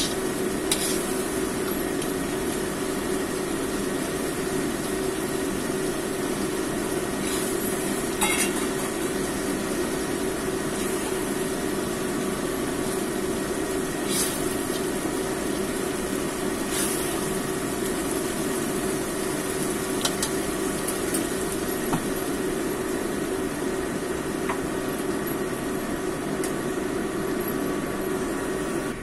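Fish and long beans in a laksa-spice sauce simmering and sizzling in a wok, a steady hiss, with a few short knocks of the spatula against the wok.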